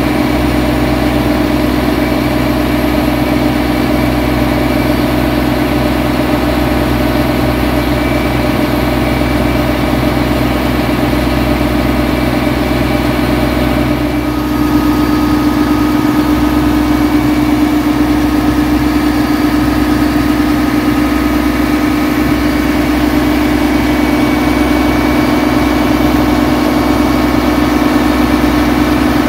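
Passenger boat's engine running steadily while under way. About halfway through it dips briefly, then picks up slightly louder.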